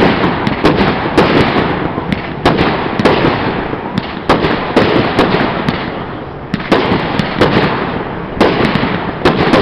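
Aerial fireworks shells bursting in quick succession, about two sharp bangs a second, each trailing off in a long echo, with a short lull a little past the middle.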